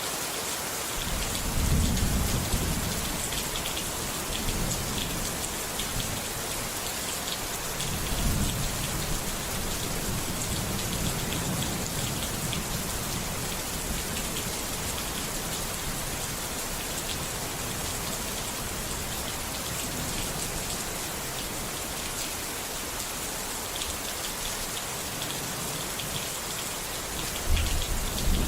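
Steady rain falling, with deep rumbles of thunder about two seconds in, again around eight to thirteen seconds, and building near the end.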